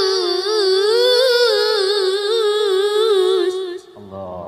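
A boy's high voice reciting the Quran in melodic tilawah style, holding one long ornamented note whose pitch wavers up and down, breaking off near the end. A lower voice comes in briefly after it stops.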